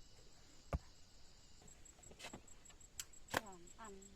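A few separate sharp knocks or taps, then near the end a short call that falls in pitch, followed by another brief call.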